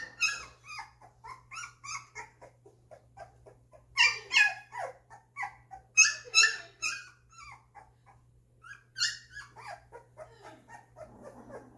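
Two-week-old golden retriever puppies whimpering and squealing in many short, high cries, with louder bursts about four, six and nine seconds in.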